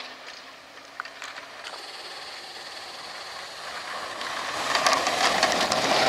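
Chevy pickup plow truck approaching while plowing snow, its engine and the rush of the blade growing steadily louder over the second half.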